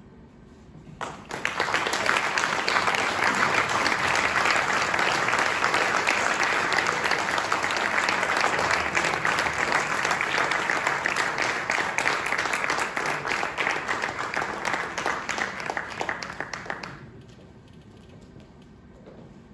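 Audience applauding, starting about a second in and dying away about seventeen seconds in.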